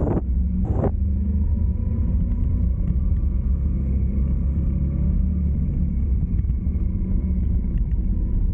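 A car on the move: a steady low rumble of road and engine noise, with a faint hum of engine tones above it. Two brief rushes of louder noise come in the first second.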